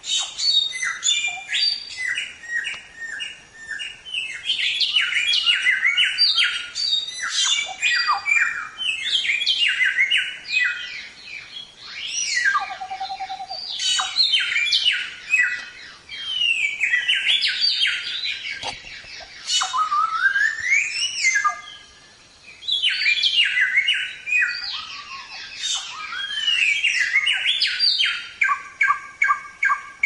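Samyong (golden whistler) singing continuously: quick runs of varied whistled notes and upward glides, with brief pauses. Near the end it shifts into a fast, even series of repeated notes.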